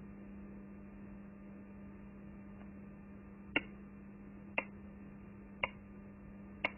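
A steady low electrical hum, with faint sharp clicks about once a second from about halfway in.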